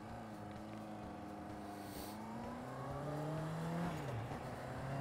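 Honda CBR650F's inline-four engine pulling away and revving up, its pitch rising, with one drop about four seconds in as it shifts up a gear.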